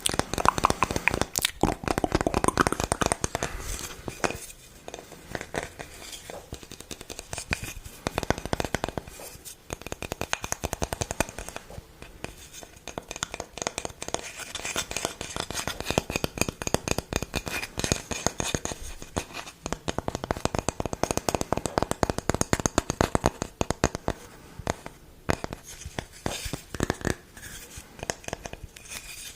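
Close-miked ASMR trigger sounds: rapid crackling and scratching with dense clicks, thinning out briefly a few times.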